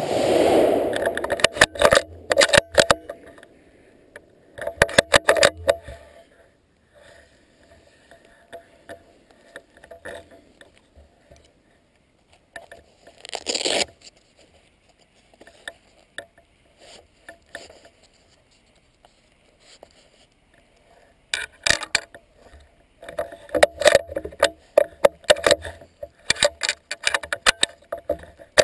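A gunshot at the very start, its report dying away over about a second. It is followed by irregular clicks, rattles and scraping from the gun and its barrel-mounted camera being handled, coming in clusters and densest near the end.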